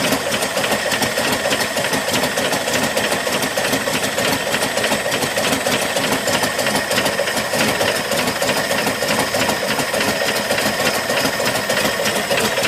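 Ford 240 inline-six engine of a 1972 F100 idling steadily, with a fast, even clatter over the running.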